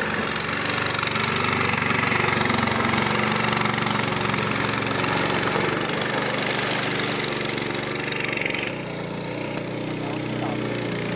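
Small motor boat engine running steadily. About nine seconds in, the hiss above it drops away and the sound becomes quieter and duller.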